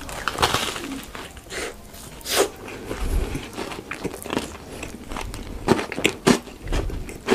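Close-miked mukbang eating: a bite into a cookie-crumb-topped dessert on a stick, then chewing with irregular crunches and crackles, the loudest a little over two seconds in and again near the end.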